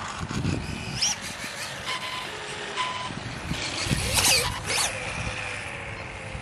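Losi Promoto-MX RC dirt bike's electric motor and chain drive whining as it rides by on asphalt, loudest about four seconds in, the pitch falling as it moves away.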